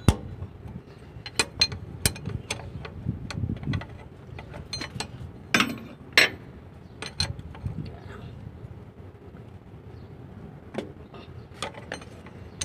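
Scattered metallic clicks and clinks of hand tools being worked on the fuel strainer fittings of an Isuzu 6HK1 diesel truck, with the sharpest knocks about two seconds in and around five to six seconds in.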